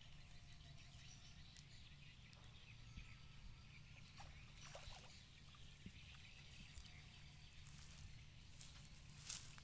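Near silence: faint outdoor background with a low steady rumble and a few faint rustles and ticks.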